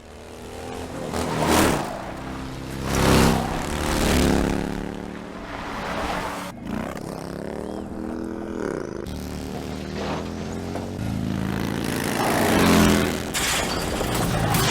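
Vehicle engines revving and speeding past. There are several loud pass-bys whose pitch swings as they go, about a second and a half, three, four and twelve seconds in.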